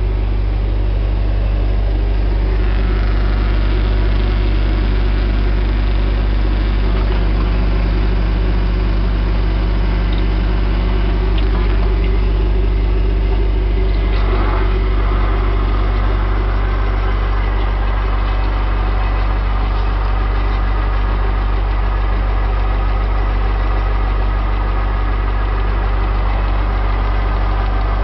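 Core drilling rig's engine running steadily with a loud, deep, even drone.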